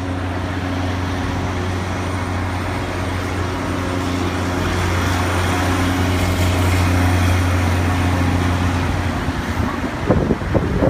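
Car driving in slow traffic: a steady low engine and road drone. About ten seconds in, wind starts buffeting the microphone.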